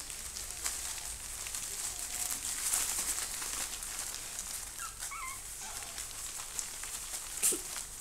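Young puppies whimpering and squeaking a few times in short high cries, most clearly about five seconds in and once more near the end, over a steady hiss.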